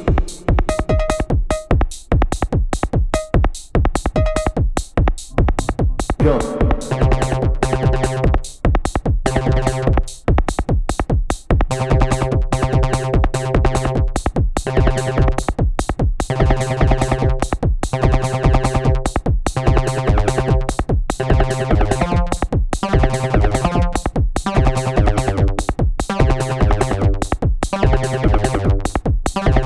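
Elektron Syntakt drum machine and synthesizer playing electronic dance music live: a steady, driving drum-machine beat with pitched synth tones. About six seconds in, a deep bass line enters after a short sweep in pitch.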